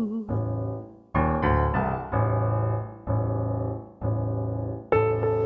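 Piano or keyboard playing a slow run of chords, about one a second, each ringing out and fading, with a few quicker notes a little over a second in.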